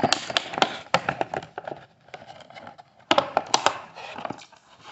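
Rigid clear plastic blister packaging crackling and clicking as it is handled and pried open: quick clusters of sharp clicks, a lull in the middle, then another flurry about three seconds in.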